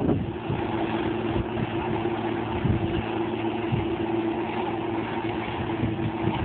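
Claas Medion 340 combine harvester running steadily with a constant machine hum, with irregular low rumbles underneath.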